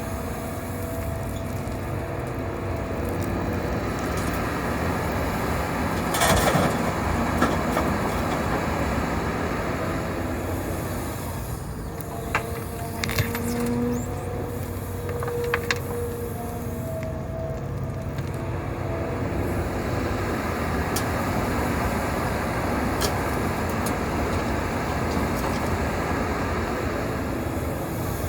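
Hitachi 350 excavator's diesel engine running steadily under load, with a hydraulic whine that comes and goes. A few sharp knocks stand out, about six seconds in and again around twelve to sixteen seconds.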